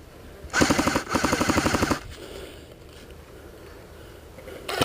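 Airsoft gun firing on full auto: a rapid burst of about a second and a half, then a second burst starting near the end.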